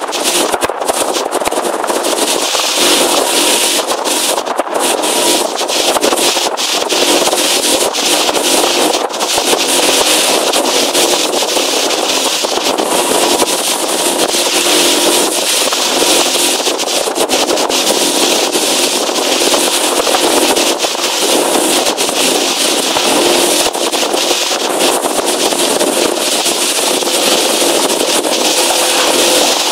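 Motorboat engine running steadily under way, with a loud rush of wind and water and frequent short crackles over it.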